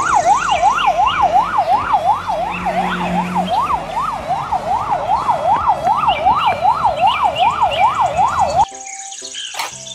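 Police siren in a fast yelp, its pitch sweeping up and down about three times a second, cutting off suddenly near the end.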